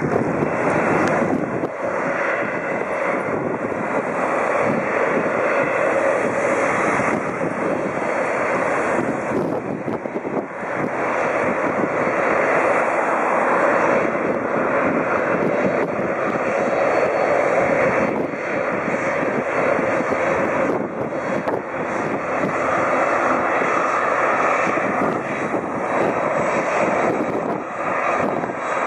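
Boeing 767-300ER's twin jet engines running with a loud, steady roar.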